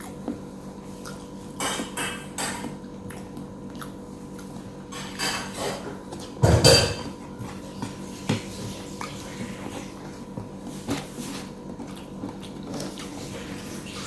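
Clinks and scrapes of cutlery and a plate during a meal, in scattered short bursts, with one louder knock about six and a half seconds in. A faint steady hum runs underneath.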